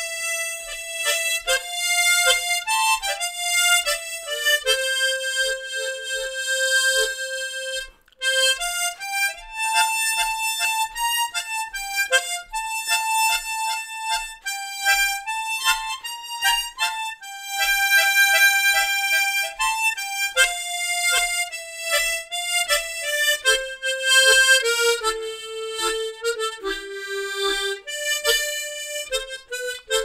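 Harmonica playing a slow song melody, one note line of held and stepping notes, with a short break about eight seconds in.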